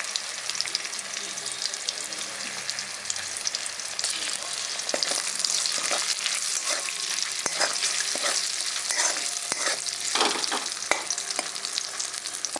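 Fried potato pieces and tomato sizzling in oil in a metal kadai, stirred with a metal spatula that scrapes and clicks against the pan. The stirring clicks start about four seconds in and come often through the rest.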